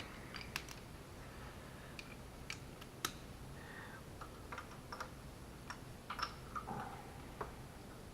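Irregular light clicks and clinks of metal hand tools, a spark plug socket and ratchet being handled, over a faint steady low hum.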